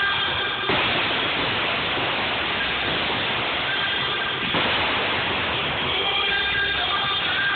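Music playing over an arena's loudspeakers, drowned out for about four seconds by a loud, even rushing noise before it comes back.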